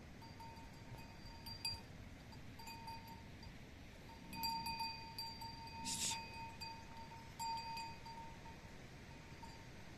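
Faint livestock bell ringing on and off, a few clanks with a steady ringing note between them. A brief hiss about six seconds in.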